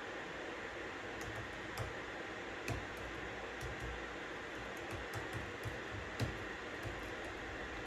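Steady white-noise hiss with scattered computer-keyboard keystrokes: slow, irregular typing of single taps, a little busier in the second half.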